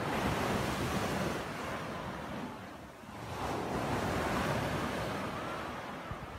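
Small waves breaking and washing up a sandy beach. The surf swells twice, about three seconds apart.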